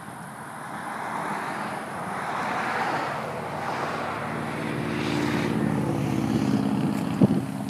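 A motor engine passing and growing louder over several seconds, settling into a steady hum, with one sharp knock near the end.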